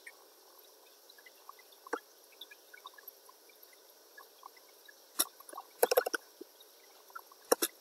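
Sharp clicks of a computer mouse and keyboard while text is selected and copied: one light click about two seconds in, a cluster of clicks around five to six seconds in and two more near the end, over a faint steady hiss.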